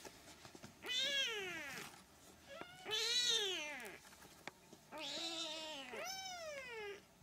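Young Siamese kittens mewing: four calls about a second each, each rising and then falling in pitch, with short pauses between.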